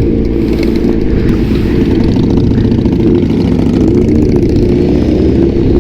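Motorcycle engine running through an Austin Racing (AR) aftermarket exhaust while riding, holding a steady note and then rising in pitch near the end as it accelerates.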